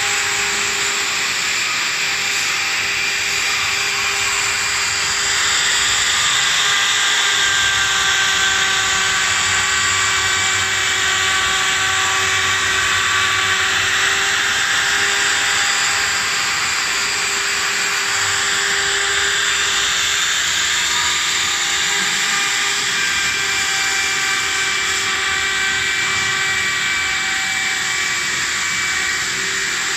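Home-built gantry CNC router machining a wood slab: the handheld router motor used as its spindle runs steadily at high speed while cutting. Several whining tones drift up and down in pitch as it runs.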